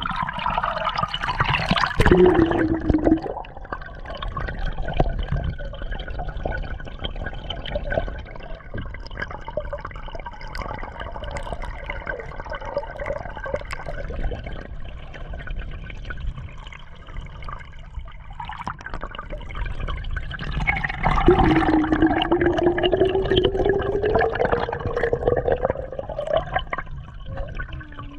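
Muffled rushing and gurgling of water around a camera held underwater from a canoe, with louder surges about two seconds in and again from about twenty-one seconds in, each with a swooping tone.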